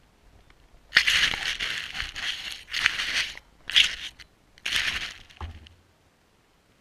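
Grass stems crackling and scraping against the GoPro housing on a Blade 350QX quadcopter as the camera is pushed into the lawn, in about six loud bursts over five seconds, ending with a brief low thud.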